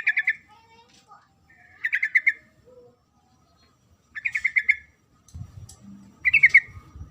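Female yellow-vented bulbul (trucukan) call: four short bursts of rapid chattering notes, each about half a second long, repeated about every two seconds. A low rumble comes in during the last couple of seconds.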